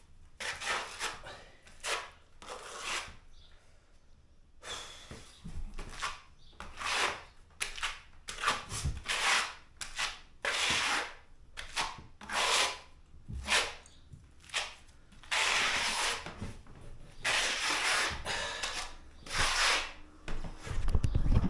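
Rubbing strokes of a hand tool worked firmly back and forth over IsoTherm thermal liner on a wall, pressing it flat to push out air pockets. The strokes come about once a second in long runs, with a short pause about three seconds in.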